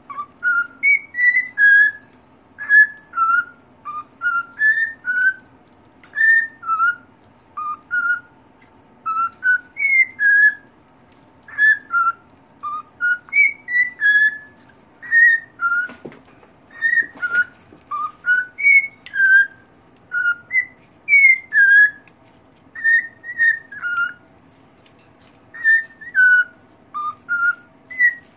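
Male cockatiel singing its whistled song to a stick: a long run of short clear whistled notes that slide up and down, in phrases broken by brief pauses.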